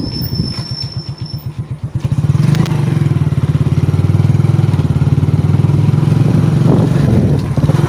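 Motorcycle engine running as the bike rides along, beating slowly and unevenly at first, then running louder and steadier from about two seconds in.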